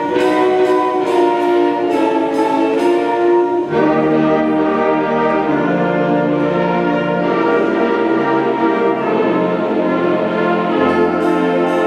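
Student concert band of flutes, clarinets, saxophones, French horns and tuba playing sustained chords. Sharp percussion strikes mark the first few seconds and return near the end, and a low bass part comes in about four seconds in.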